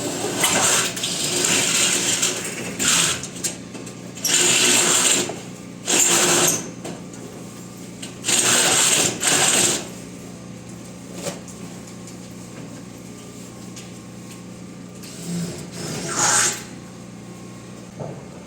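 A power tool running in several short bursts of about a second each, over a steady low hum.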